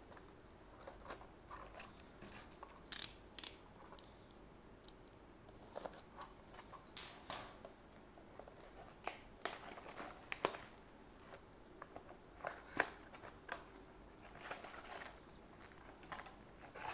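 A cardboard Weiss Schwarz trading-card booster box being opened by hand: its top flap worked open and the foil booster packs pulled out. There are irregular short crinkles, rustles and small taps, with a few sharper ones.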